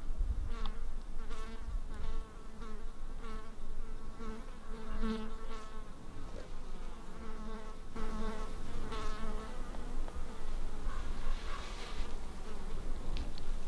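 A flying insect buzzing close to the microphone, a steady droning hum that wavers and swells and fades as it moves about.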